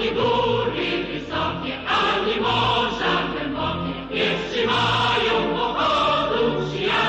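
Choir singing a Polish socialist-era mass song, in phrases that change about once a second.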